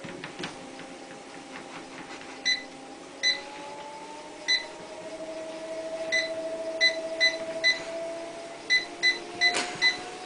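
Treadmill control panel giving about eleven short electronic beeps, several in quick runs, over the steady whine of the treadmill's motor and belt, whose pitch slides up and down as the belt speed changes.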